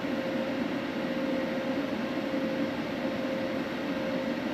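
Steady machine hum: an even whir with one constant mid-pitched tone running through it.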